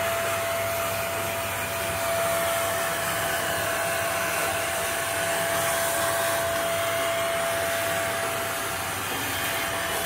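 Vacuum cleaner running steadily, its nozzle sucking up dust brushed from an air conditioner's filters: an even rush of air with a steady whine over it.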